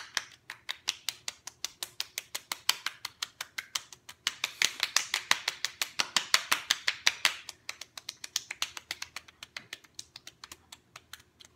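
Open palms slapping both cheeks in a fast, steady rhythm, about six slaps a second, louder around the middle.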